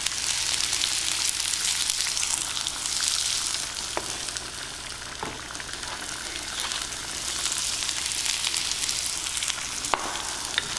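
Onion, garlic and ginger sizzling steadily in hot coconut oil in a skillet, with a few sharp knocks of a knife on a wooden cutting board.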